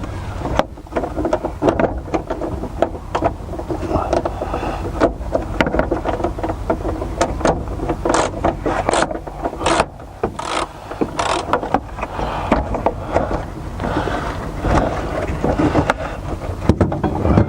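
Hand tools on the dashboard's mounting bolts: a spanner or socket working a bolt loose, with irregular metallic clicks, knocks and rattles throughout.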